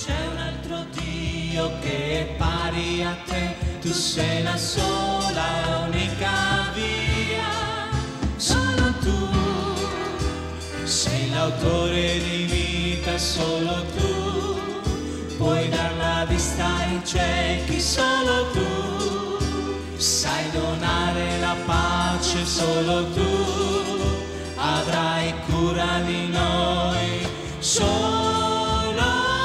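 Live worship song: singers with wavering, vibrato-laden voices over a band with drums and a steady bass line.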